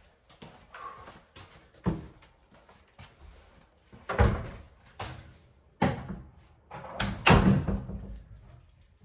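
Irregular heavy knocks and clunks, about half a dozen, the loudest between about four and seven seconds in, from handling a Subaru EJ22 short block and mounting it on an engine stand.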